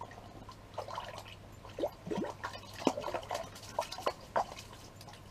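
Water dripping and splashing lightly in an ice-fishing hole as a just-caught cisco is handled at the water's edge: a scattered series of small plinks and drips, most between about one and four and a half seconds in.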